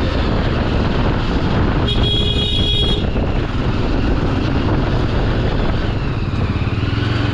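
Yezdi Adventure motorcycle's single-cylinder engine running under way, with a steady rumble and wind noise. A horn sounds for about a second, about two seconds in.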